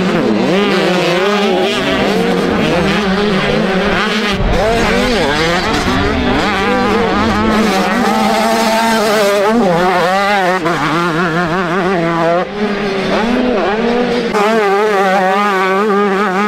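Several motocross bikes racing on a dirt track, their engines overlapping and revving up and down constantly as the riders work the throttle through the course.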